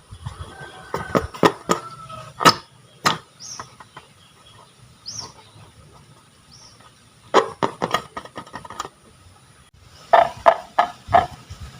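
Several bursts of sharp clicks and pops, a handful at a time, with two faint short high chirps in the quieter stretch between.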